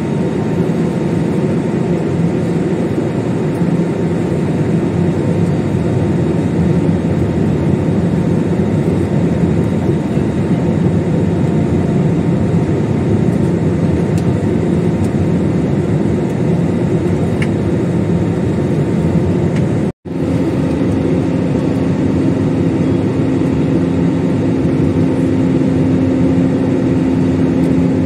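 Steady in-flight cabin noise inside an Airbus A320 airliner: engines and rushing air heard from a window seat. It cuts out for an instant about two-thirds of the way through, after which a steady low hum stands out.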